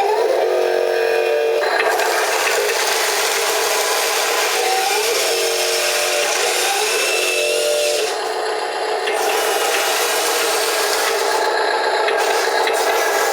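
Wheel loader at work: a steady mechanical whir and grinding, its pitch shifting up and down, briefly easing off about eight seconds in.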